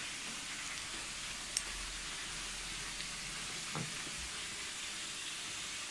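Zucchini stuffed with ground meat frying in a pan of oil: a steady sizzle, with a single sharp click about a second and a half in.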